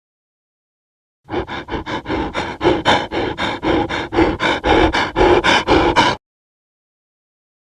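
Dog panting rapidly, about five quick breaths a second; it starts about a second in and cuts off abruptly about six seconds in.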